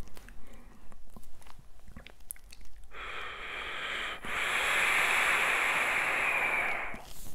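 A few small clicks and handling noises, then a long hissing draw on a vape, air pulled through the atomizer while it fires. It starts about three seconds in, breaks off briefly a second later, and lasts about four seconds.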